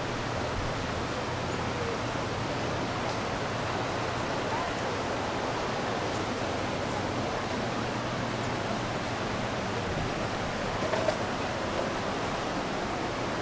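A mountain river rushing over rocks in small rapids: a steady, even rushing noise.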